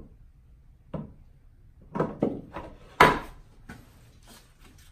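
A series of short knocks and clunks as the top fitting of a Roddie R8 pipe bursting machine is worked by hand: about six hits over three seconds, the loudest about three seconds in.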